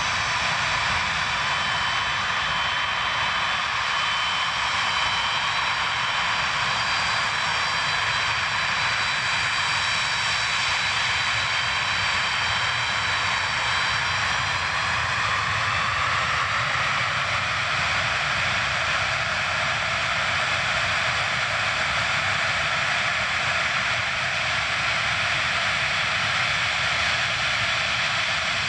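Antonov An-124-100's four D-18T turbofan engines running at low taxi power: a steady jet noise with several high whining tones that fade out about halfway through, leaving a stronger hiss.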